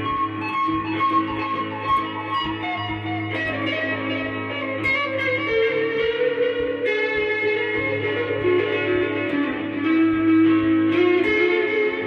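Handmade Strat-style electric guitar with a solid ash body, black walnut top and Tex-Mex pickups, played through an amplifier: single-note lead lines with bends and slides over sustained lower notes.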